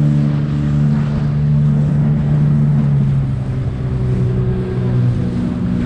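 Outboard motor of a small aluminium boat running under way, a steady engine note that dips slightly in pitch about halfway through and then comes back up.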